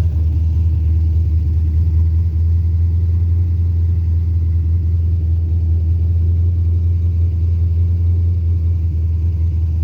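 Carbureted 5.3-litre LS V8 engine running at a steady idle, a deep even rumble with no revving. The owner is unsure whether carburetor, timing or a vacuum leak is behind its idle trouble.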